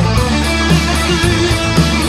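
Live rock band playing: electric guitar over bass guitar and drums, with a steady beat and no singing.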